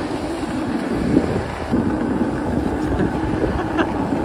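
Snowboard and ski edges sliding and scraping over packed snow, a steady rushing scrape, with wind buffeting the microphone.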